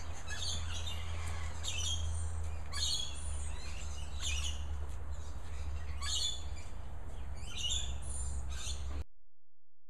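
Birds chirping and calling repeatedly, over a steady low hum. The sound cuts off abruptly near the end.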